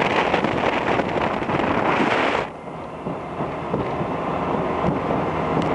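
2005 Sea Ray 200 Sundeck running at cruising speed: wind buffeting the microphone and the wake's spray rushing alongside the hull, over the boat's engine. About two and a half seconds in, the wind and water hiss drops off suddenly, leaving a lower, quieter rumble.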